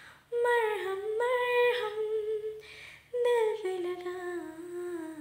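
A woman's voice singing unaccompanied in two long, held phrases, each after a short breath. The second phrase steps slowly downward in pitch near the end.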